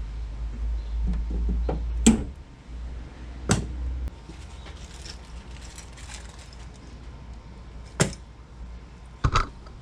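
A few sharp clicks and knocks from working on the Honda Pilot's liftgate lock and trim, spaced unevenly with a close pair near the end, over a low rumble that stops about four seconds in.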